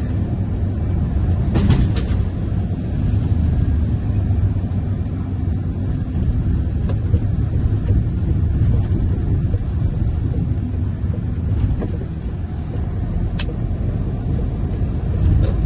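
Tipper truck's diesel engine running under way with tyre and road noise, a steady low rumble, and a few sharp clicks or rattles.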